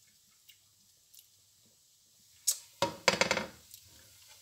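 A person chewing a bite of pan-fried mushroom, with faint mouth clicks, then a brief louder burst of sound about three seconds in, lasting under a second.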